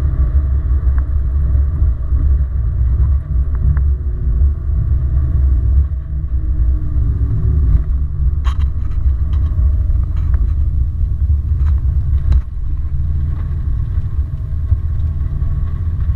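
Subaru Impreza WRX STI with its turbocharged flat-four, driven on a circuit and heard from inside the cabin: a steady, heavy low rumble of engine and road noise. A few sharp clicks and knocks come in the second half.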